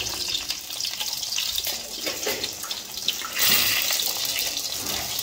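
Whole spices (bay leaves and cardamom pods) sizzling in hot mustard oil in a pan: a steady hiss that grows louder about three and a half seconds in.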